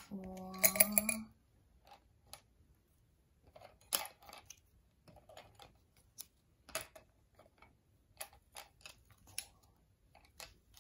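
Wooden popsicle sticks clicking against small glass spice jars and a plastic tub as they are picked out and dropped in, a scatter of light separate clicks, the sharpest about four seconds in. A short hummed voice is heard at the very start.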